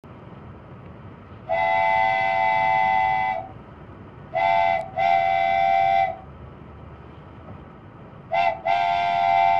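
Diesel locomotive's multi-chime air horn sounding a chord in a pattern: one long blast, then a short and a long, then another short and a long, the last blast trailing off.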